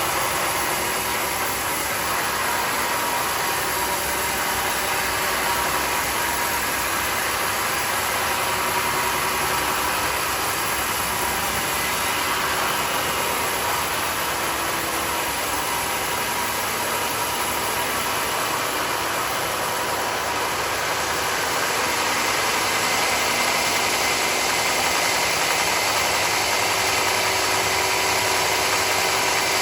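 Sawmill running steadily, a continuous machine drone with a steady high whine, getting slightly louder about two-thirds of the way through.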